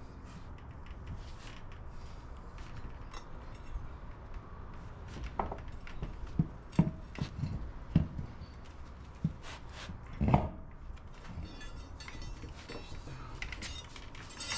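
Scattered clinks and knocks of hand tools on metal hub and brake parts, a handful of louder knocks coming between about six and ten seconds in.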